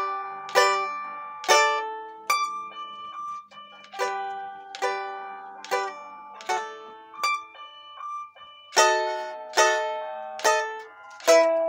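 Domra played solo with a plectrum, a minuet: single plucked notes and two-note chords, each with a sharp attack that rings and fades, at a moderate, even pace.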